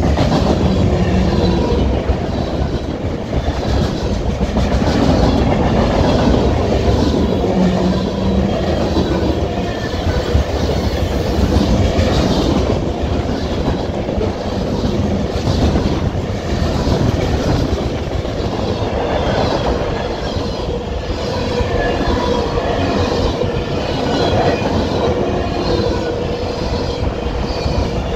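Freight cars of a mixed freight train (autoracks, boxcars, covered hoppers) passing close at speed: a steady rumble with rhythmic clatter of steel wheels over rail joints, and a thin wheel squeal at times.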